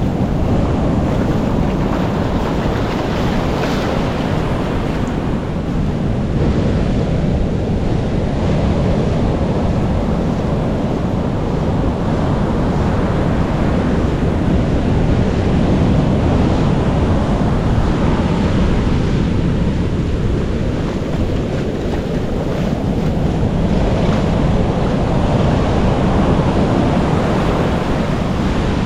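Sea surf washing onto a beach in slow swells, mixed with wind rumbling on the microphone.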